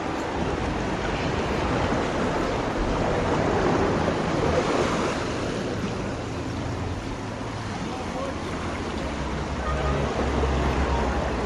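Small waves washing against a rocky shoreline, with wind buffeting the microphone; the wash swells slightly about four seconds in and again near the end.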